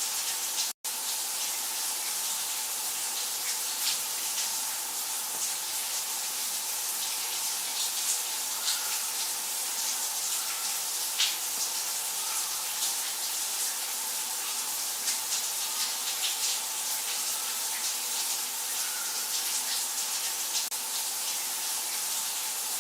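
Water running steadily from a tap, with small scattered splashes and clicks; it breaks off for an instant about a second in.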